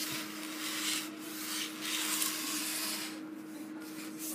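Rubbing and scraping as the laptop's plastic case is handled during disassembly, for about three seconds, then fainter.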